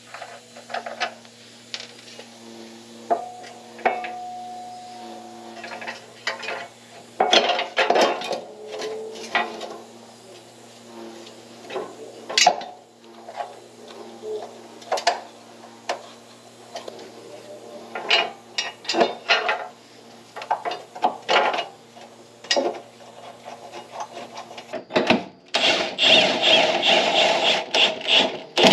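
Tools clinking and knocking on metal suspension bolts under a car, a long series of sharp irregular clicks. Near the end a cordless impact wrench hammers for about three seconds, tightening the subframe bolts.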